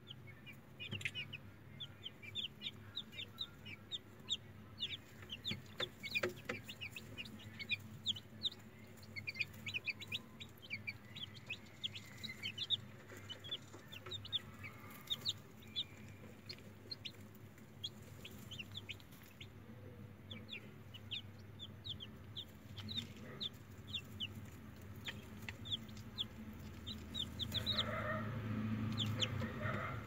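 Newly hatched chicks peeping: many short, high, falling peeps in quick succession, over a steady low hum. The sound grows louder near the end.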